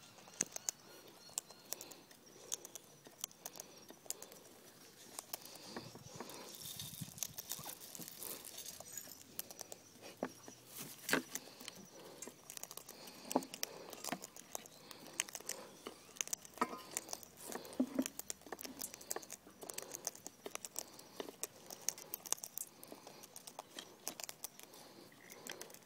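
Cockatoos feeding on birdseed from a metal frying pan: irregular clicks, taps and small rattles of beaks picking at and cracking seed against the pan.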